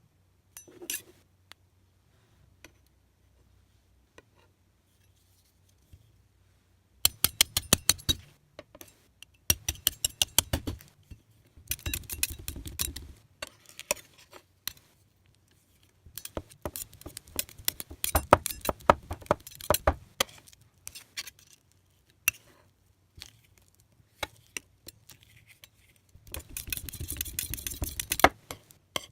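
Small hard objects clinking and tapping in several bursts of rapid clicks, each lasting a second or more, with quiet gaps between them.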